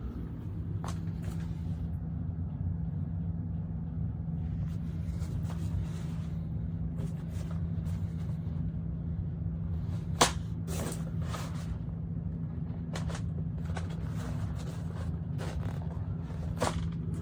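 Steady low machine hum throughout, with scattered clicks and knocks; the sharpest knock comes about ten seconds in.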